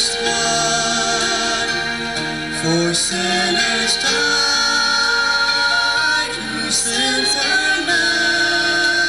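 Mixed church choir of men and women singing a hymn in parts, with long held chords.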